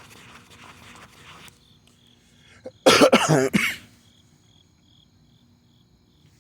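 A person coughs hard in a quick run of several coughs about three seconds in, the loudest sound here. Before it, a soft rubbing noise as the phone screen is wiped; after it, crickets chirping faintly in an even pulse, two or three chirps a second.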